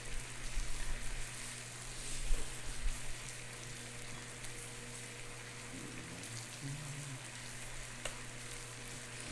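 Marinated meat sizzling steadily on an electric grill plate, its sugary marinade charring black, over a low steady hum.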